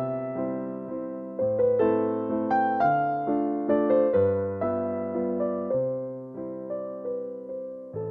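Background music: a slow piano or electric piano melody of struck notes that ring and fade, with a low bass line underneath.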